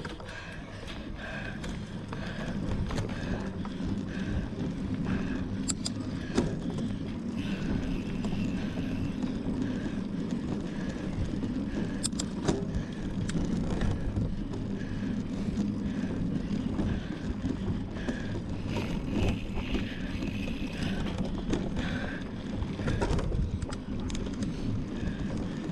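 Mountain bike being ridden hard over a dirt cross-country course: steady tyre and wind rumble with sharp rattles over bumps, and a soft regular sound about one and a half times a second.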